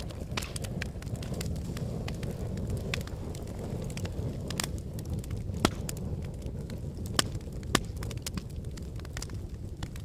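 Wood fire in a fire pit crackling over a steady low rumble, with many sharp pops. The loudest pop comes a little past halfway, and two more follow soon after.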